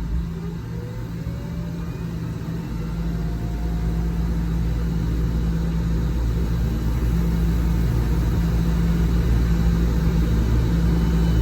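CB radio receiver hissing with skip static between transmissions, slowly getting louder, with faint whistles gliding upward in the first few seconds, over a steady low hum.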